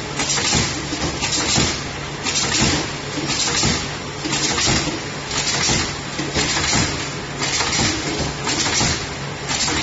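Rat trap board making machine running: a steady hum under a regular cycle of hissing bursts and light knocks, about one every three-quarters of a second.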